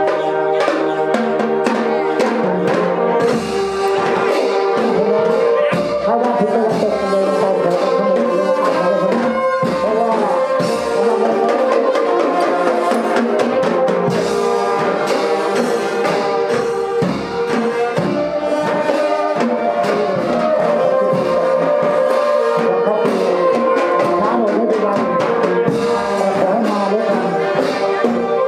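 Brass band music with drums: horns holding and moving between notes over a steady drum beat.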